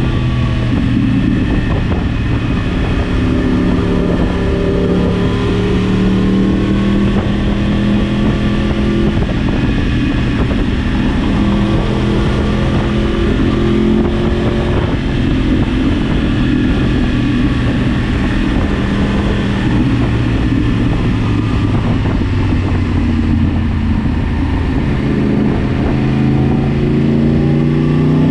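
Yamaha R1 motorcycle engine heard from an onboard camera, running at fairly steady revs with small changes in pitch. Near the end the revs climb sharply under acceleration.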